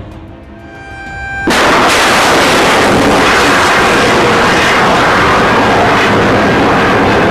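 Rocket or missile launch: a sudden loud roar of the motor igniting about a second and a half in, then running on steadily.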